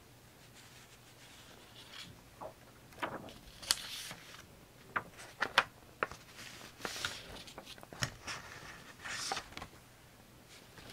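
Paper and small craft supplies handled on a desk: irregular paper rustles mixed with sharp little taps and clicks, starting about two seconds in.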